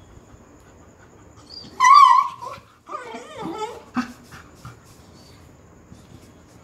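A beagle in labour crying out: a loud, wavering cry about two seconds in, then a lower, wavering whine, the sounds of a dog in labour pain. A sharp tap follows about four seconds in.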